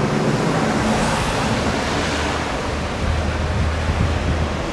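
Steady rushing hiss of background noise, with a low hum joining it about halfway through.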